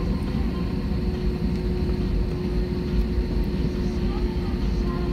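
Steady low rumble heard inside an airliner's cabin as the aircraft taxis, with a constant hum running through it.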